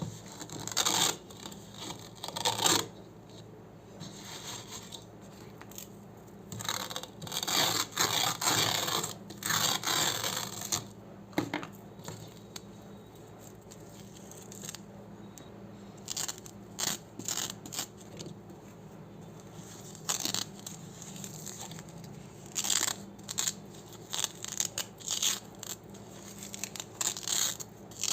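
Hook-and-loop (Velcro) strips being pulled apart in crunchy ripping tears. The tears come in several bursts separated by pauses of a few seconds.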